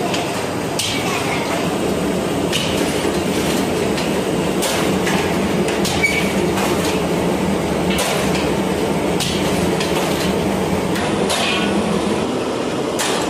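Bread-production machinery running: dough-sheeting rollers and a perforated conveyor belt give a steady low mechanical hum, with frequent irregular clanks and rattles.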